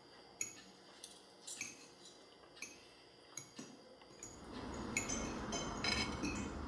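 Cutlery clinking against plates during a meal: light, separate clinks at first, then more often. A steady low background noise comes up about four seconds in.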